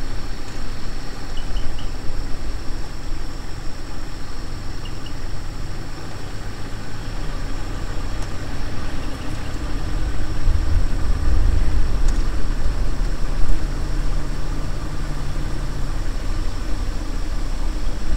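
Vehicle engine running at idle: a low steady hum that gets heavier about ten seconds in.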